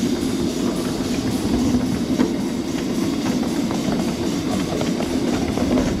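Live-steam miniature locomotive and its riding car running along the track: a steady rumble of wheels on rail, with a few faint clicks from the rail joints.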